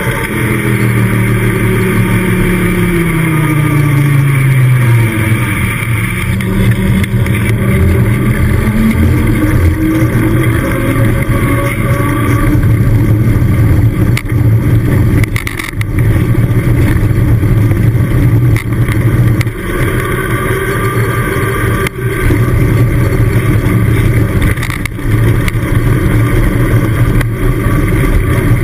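Wind rushing over a handlebar-mounted GoPro's microphone and a mountain bike's tyres humming on tarmac during a fast downhill run. The tyre hum falls in pitch over the first few seconds, then rises again, and there are a few knocks from bumps in the road.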